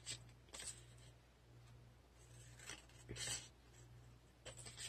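Scissors snipping paper in a few faint, short cuts, the loudest about three seconds in, trimming small corners off a folded paper piece.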